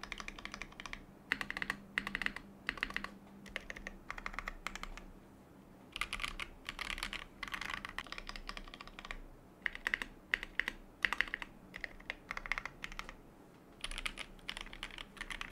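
Typing on a foam-dampened custom mechanical keyboard with PBTFANS Deep Sea Predator PBT keycaps: quick runs of key clacks broken by short pauses. Near the end, after a brief pause, the typing continues on the same kind of board with GMK ABS keycaps.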